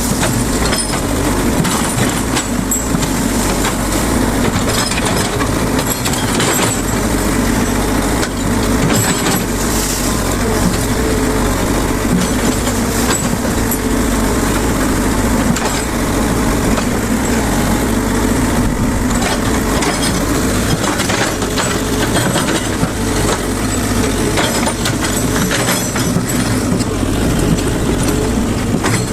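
Excavator diesel engine running steadily under working load, with frequent short cracks and clanks from the machine tearing out brush and branches.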